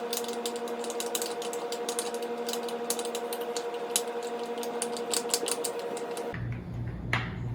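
A utensil stirring slime in a bowl, making rapid, irregular clicks and taps against the bowl over a steady hum. The clicking stops about six seconds in.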